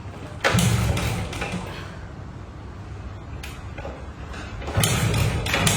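Honda Win 100's single-cylinder engine being kick-started twice, about half a second in and again near the end: each kick is a thud followed by about a second of the engine turning over without catching, a failed start.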